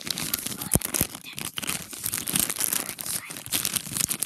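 Toy packaging crinkling and tearing as it is pulled open by hand close to the microphone, a dense crackle with a couple of sharp snaps about a second in.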